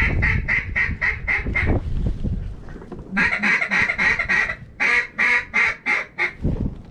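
Duck call blown in runs of mallard hen quacks, about three a second: a run of about seven quacks, a pause of over a second, then a longer run of about nine that ends near the end. Wind buffets the microphone under the first run.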